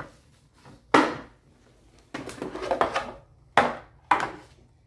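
Hard plastic organizer tray pieces being handled and knocked together or set down on a table: three sharp knocks, about a second in and twice near the end, with a stretch of rustling and clatter between.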